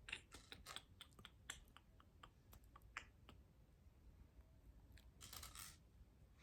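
Faint, irregular clicks and taps of Lego bricks being handled and pressed together, with a brief rustle about five seconds in.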